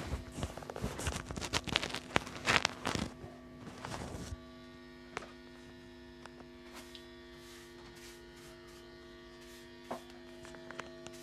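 Knocks and rustles of handling for about the first four seconds, then a steady electrical mains hum from the electric guitar setup, a Stratocaster-style guitar with single-coil pickups, left on while it is not being played. A single click comes near the end.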